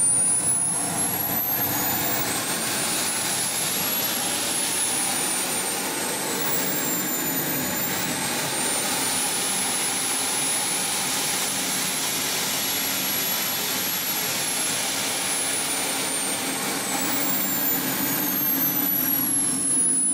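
KingTech K-310 model jet turbine running in a giant-scale RC BAE Hawk: a steady rush under a high whine. The whine climbs over the first few seconds, dips briefly around eight seconds in, rises again, then falls away over the last few seconds as the turbine spools up and down.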